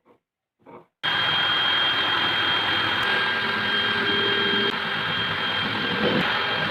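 Electric power tool motor switched on about a second in and running steadily at full speed, with a high-pitched whine over a rushing noise, after a few faint taps.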